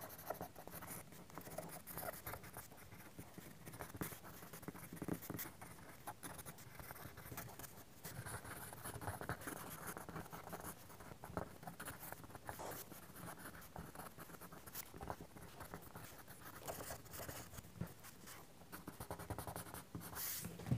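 Soft graphite pencil shading on sketching paper: a faint, continuous run of quick, irregular strokes of the lead across the page.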